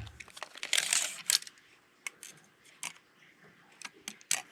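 Folding pocket knife being handled: a short scraping rush about a second in ends in a sharp click, followed by a few scattered light clicks.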